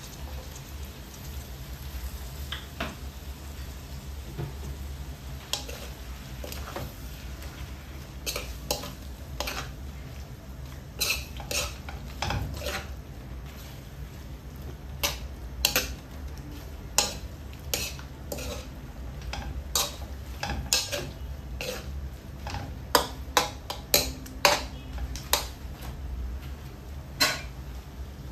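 Metal spoon stirring chicken pieces in a metal wok, with repeated clanks and scrapes of the spoon against the pan, few at first and coming quicker and louder in the second half. A steady low hum runs underneath.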